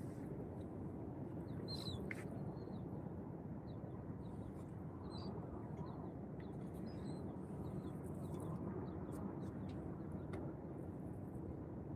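Short, high bird chirps now and then over a steady low outdoor rush.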